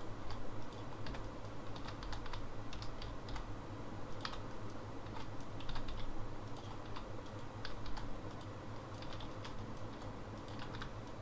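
Computer keyboard keys being tapped irregularly, with scattered single clicks, over a faint steady low hum.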